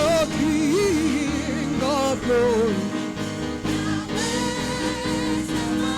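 Gospel worship music: voices singing and sliding in pitch over a steady, sustained instrumental backing.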